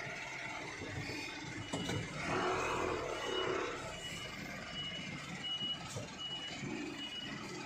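A truck's reversing alarm beeping: a short high beep about every three-quarters of a second, starting about two seconds in, over the low running noise of the truck.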